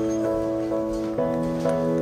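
Background music: soft sustained chords that shift to a new chord about a second in.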